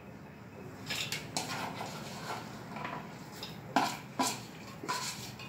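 Chopped spinach being tipped and scooped by hand from a plastic bowl into a metal pressure cooker: soft rustling with about five light clattering knocks of bowl against pot.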